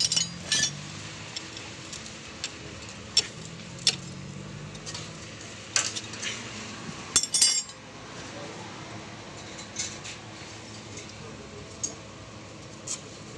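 Metal tools and engine parts clinking and tapping against each other in short, sharp, irregular clicks, the loudest cluster about seven seconds in.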